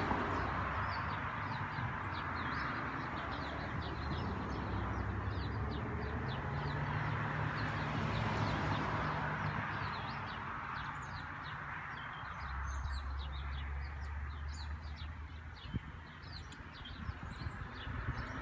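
Small birds chirping, a rapid run of short, high, falling notes repeated throughout, over a steady low hum and hiss.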